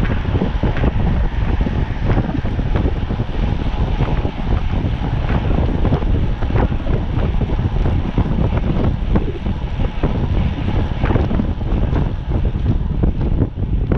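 Wind buffeting the microphone of a camera riding on a racing bicycle at speed, with a steady scatter of small knocks and rattles.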